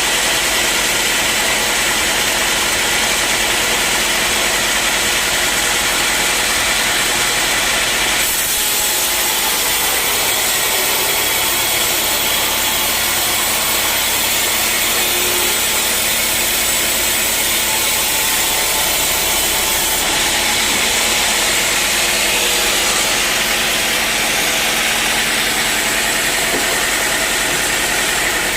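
Sawmill running steadily while sawing teak wood. The sound turns brighter and hissier from about eight seconds in until about twenty seconds.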